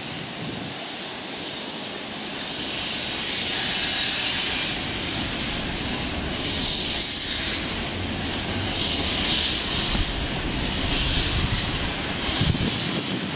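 Narrow-gauge steam locomotive letting off steam in hissing surges, then chuffing in quicker, regular beats with a low rumble as it gets under way.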